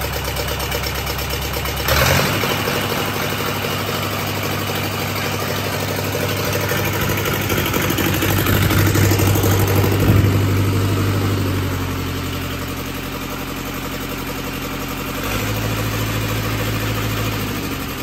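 Lister HR4 four-cylinder air-cooled diesel engine running on its first run after a full rebuild. Its note changes suddenly about two seconds in, builds up to a peak around ten seconds, drops back, then rises briefly again near the end.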